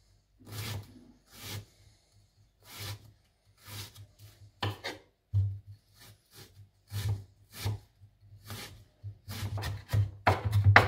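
Kitchen knife chopping onion finely on a wooden cutting board: separate, irregular strokes, roughly one or two a second, each a short knock of the blade on the board, coming a little quicker near the end.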